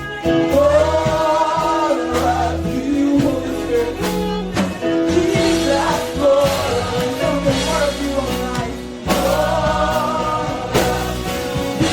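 Live gospel music: sung voices holding long, gliding notes over a band with bass and drums.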